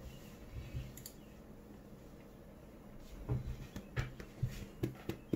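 Faint room tone, then a few seconds in a run of soft, irregular knocks and handling noises with a few sharp clicks.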